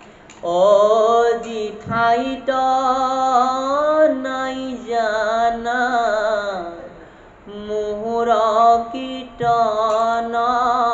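A man's voice chanting a verse of the Assamese Bhagavat in a slow, drawn-out melody of long wavering notes. There is a short breath about two seconds in and a longer pause about seven seconds in.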